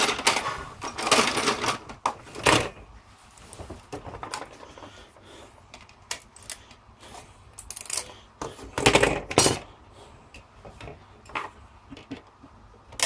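Pliers working on an old telephone's circuit board and plastic parts: scattered clicks and clatters of metal tool on hard plastic and board. There are louder bursts at the start and again around nine seconds in.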